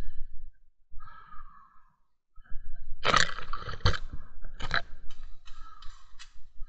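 Leafy branches and twigs rustling and cracking close to the microphone as someone pushes through dense undergrowth. It is faint at first, then about three seconds in comes a run of loud, sharp crackles.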